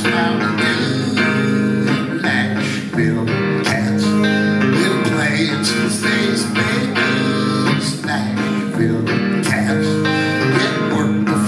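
Guitar played live, a run of picked notes and strummed chords.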